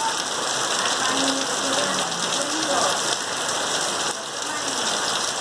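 Heavy rain falling steadily, an even, unbroken hiss of drops on surfaces.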